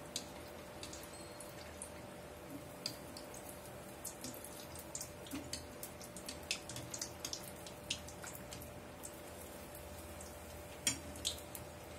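Sweet rava appam (semolina-batter fritter) deep-frying in hot oil in a small kadai: a low sizzle with scattered sharp pops and crackles, two louder ones near the end. A faint steady hum runs underneath.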